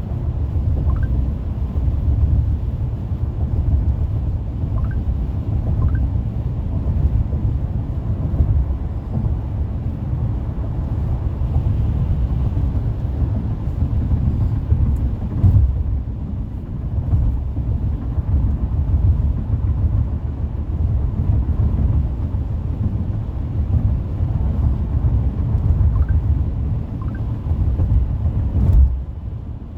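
Car road noise at freeway speed: a steady low rumble of tyres and engine heard inside the car, with two brief thumps, about halfway through and near the end.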